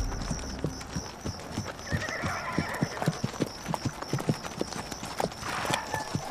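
Horses' hooves clip-clopping at a walk, irregular hoof strikes several a second, with a steady high chirring throughout.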